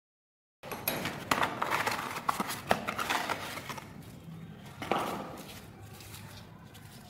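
Hands handling and unwrapping a tissue-paper bundle: irregular rustling and crinkling with sharp clicks, busiest in the first few seconds, one louder click about five seconds in, then quieter rustling.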